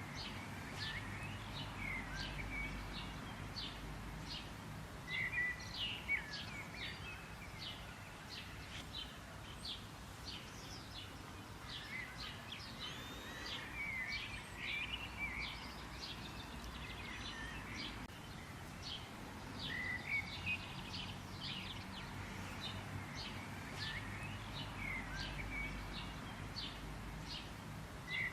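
Several small birds chirping, with many short, high chirps repeating throughout and a few lower, warbled calls among them, over a steady low background noise.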